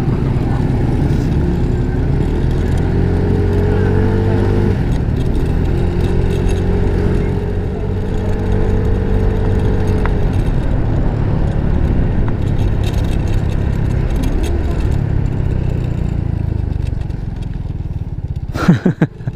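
Motor scooter engine running steadily under way, with a continuous rush of road and wind noise. Its tone swells slightly a few seconds in and again around the middle. A voice cuts in briefly at the very end.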